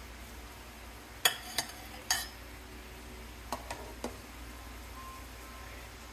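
A metal slotted spoon clinking against a pot while boiled dumplings are scooped out: three sharp clinks a little over a second in, then three lighter ones about three and a half to four seconds in, over the steady hiss of the boiling water.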